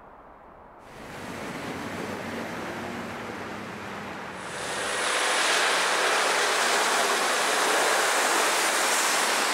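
Volvo FMX tipper truck driving through wet mud and puddles: a low engine note under tyre noise starts about a second in, then a loud, steady rush of water and mud spraying from the tyres from about five seconds in.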